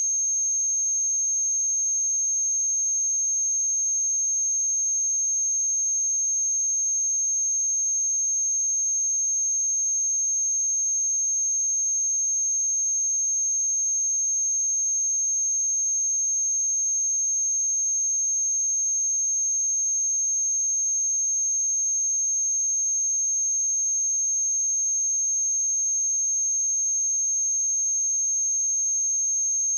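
A pure 6411 Hz sine-wave test tone, one steady high-pitched whistle held at constant loudness.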